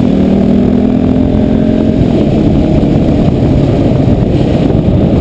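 Motorcycle engine running while riding, its pitch easing down slightly over the first two seconds, then mostly buried in a dense low rumble of wind and road noise.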